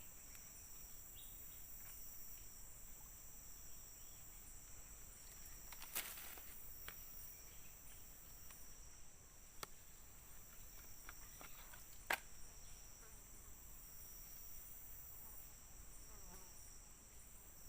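Steady, high-pitched insect chorus of a tropical forest, droning at two pitches without a break, with a few sharp clicks about six, nine and twelve seconds in.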